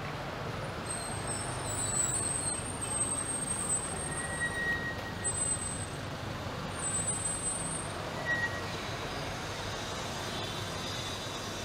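Busy city street traffic noise: a steady hum of vehicles, with several high, thin squeals over it through the first two-thirds.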